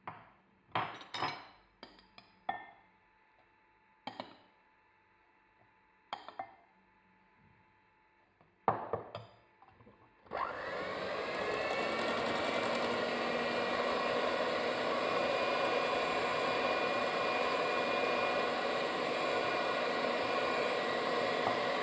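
A few separate clinks and taps of a spoon against the bowls as baking soda and flour go in. About ten seconds in, a Moulinex electric hand mixer switches on, its whine rising as the motor spins up, then runs steadily as it beats the flour into cake batter.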